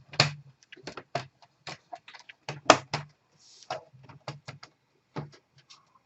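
Plastic case of an HP 15 laptop being pried open with a pry tool: a dozen or so sharp, irregular clicks and knocks as the case clips work loose.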